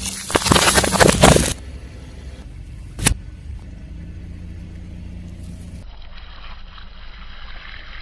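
Car tyre rolling over and crushing something crunchy: a loud burst of crackling and snapping for about a second and a half, then one sharp crack about three seconds in, over the low steady running of the car.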